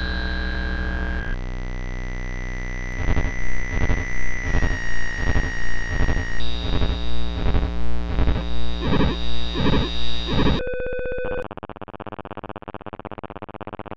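Glitchy electronic synthesizer soundtrack made with the bent.fm app: a steady buzzing drone, then from about three seconds in a throbbing pulse about twice a second. About ten and a half seconds in it cuts to a short buzzing tone, then a quieter, rough, noisy buzz.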